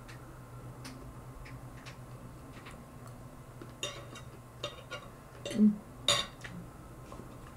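Metal fork clinking and scraping on a dinner plate while eating, a few light clicks and then a cluster of sharper clinks around four to six seconds in, with a short low knock, the loudest sound, among them. A steady low hum lies underneath.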